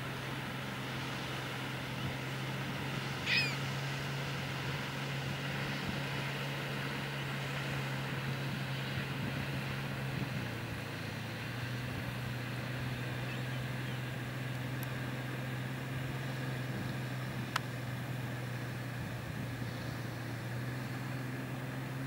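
Steady low engine hum that drops slightly in pitch around the middle, with one short bird call about three seconds in and a single sharp click later on.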